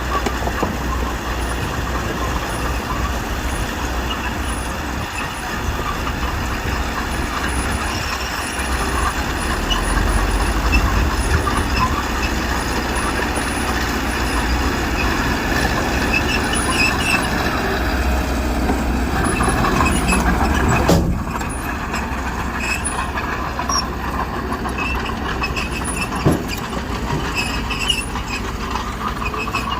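Heavy diesel earthmoving machinery running under load, a steady engine noise that grows louder for about ten seconds, then drops off suddenly about two-thirds of the way through. A single sharp knock comes near the end.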